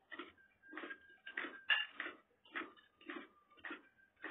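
Cutlery clinking and scraping against ceramic plates and bowls while eating, about eight short clinks roughly two a second, some with a brief ring.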